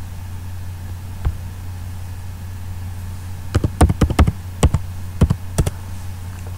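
A single click about a second in, then a quick run of about a dozen computer-keyboard keystrokes typing a password, all over a steady low hum.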